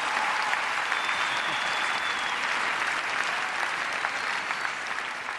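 Large arena audience applauding steadily, the clapping easing off near the end.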